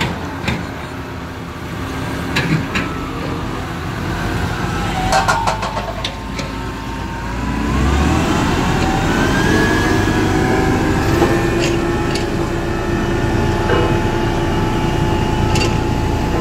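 SDLG RS8200 single-drum road roller's diesel engine running, with a few sharp metallic clanks in the first half. About eight seconds in the engine speeds up, then runs louder and steady.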